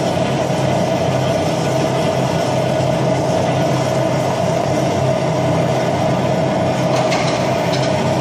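Gas torch flame running steadily as it melts silver in the crucible of a centrifugal casting machine, with a couple of faint ticks near the end.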